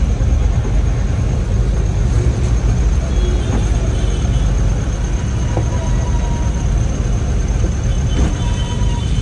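Steady low rumble of a vehicle's engine and road noise, heard from inside the passenger cabin.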